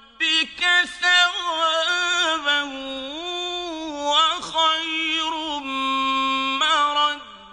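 A male reciter chanting a Quran verse in Arabic in a melodic, drawn-out style, holding long notes that bend and glide up and down with ornaments, the phrase fading near the end.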